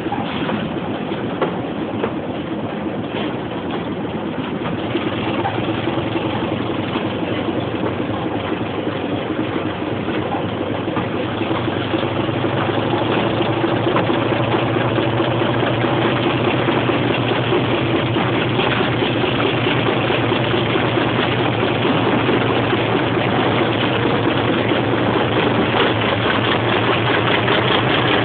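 Class 25 diesel locomotive's Sulzer six-cylinder engine working hard under load, heard through an open coach window along with the train's running noise. The engine note grows louder and stronger about halfway through.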